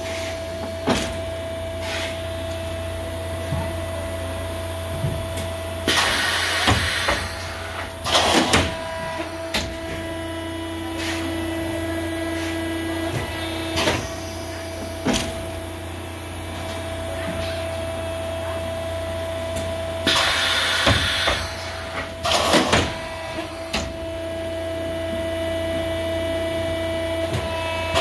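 Thermoforming machine running through its cycle: a steady hum with a constant tone, broken by loud rushing bursts and knocks, a pair about six seconds in and the same pair again about fourteen seconds later.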